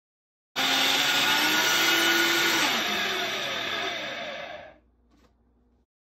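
Electric blender running, puréeing avocado and aloe vera into a smooth paste. It starts abruptly about half a second in, its tone sinks and fades from about three seconds in, and it stops just before five seconds in.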